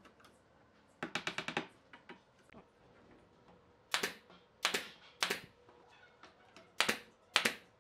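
Nail gun firing single shots into wooden strips: five sharp cracks spaced about half a second to a second and a half apart, in the second half. A quick run of about seven clicks comes earlier, about a second in.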